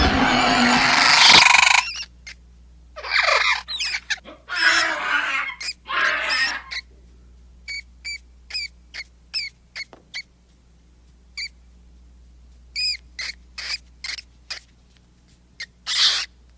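Compsognathus creature sound effects: a long harsh screech, then several noisy screeches, then strings of short, high chirps with brief gaps between them.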